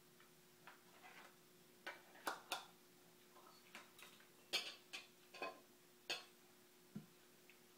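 Scattered light clicks and clinks of small kitchen containers (plastic cups and a small jar) being knocked and set down by a toddler at play, coming irregularly, most of them in the middle, over a faint steady hum.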